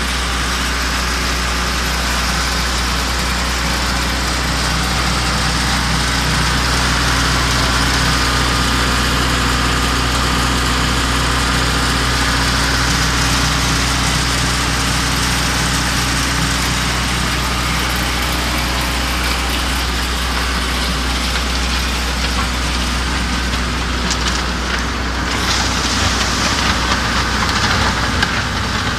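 Diesel engine of a mobile concrete mixer pump running at a steady speed with a constant low hum. Near the end a rougher, crackling rattle joins in over it.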